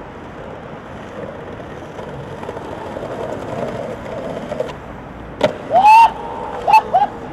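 Skateboard wheels rolling over stone paving, a steady rumble. About five and a half seconds in comes a sharp clack, then several loud, short, rising squeals, and another clack near the end.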